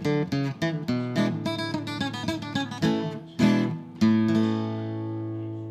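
Acoustic guitar music: a run of quick picked notes, then a final chord struck about four seconds in that rings and slowly fades out.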